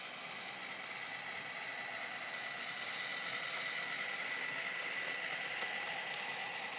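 N scale model passenger train running past on its track: a steady high-pitched whine with the rolling of its wheels and faint light ticks. The whine grows louder about halfway through, then eases a little.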